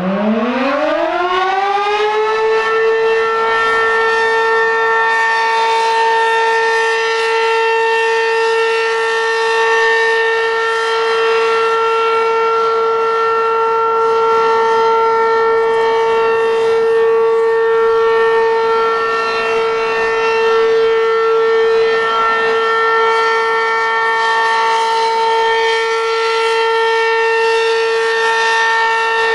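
Werden Electric P-127 outdoor warning siren winding up, its pitch rising over the first two seconds or so, then holding one steady loud tone with strong overtones: the steady Full Alert test signal.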